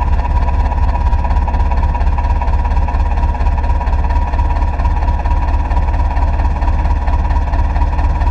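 Heavy diesel engine running steadily at an even speed, with a deep constant rumble and a faint steady whine.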